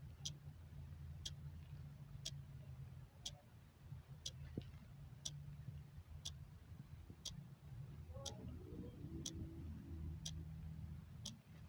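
Clock ticking steadily, one sharp tick each second, over a low steady background hum.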